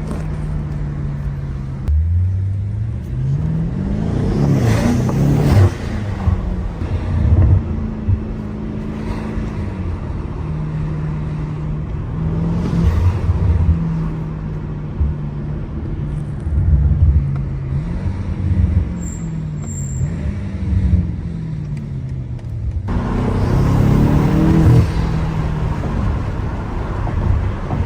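BMW M8 Competition's twin-turbo V8 pulling through city traffic, its pitch climbing and dropping again and again as it accelerates, shifts and eases off. Near the end it takes a harder burst of acceleration that sounds louder and brighter.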